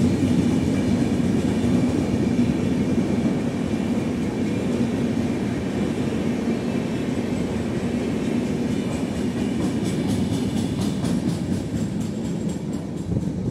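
Passenger coaches of an Indian express train running past at speed: a steady rumble of wheels on the rails, with a run of rapid wheel clicks near the end as the last coach passes and the sound begins to ease.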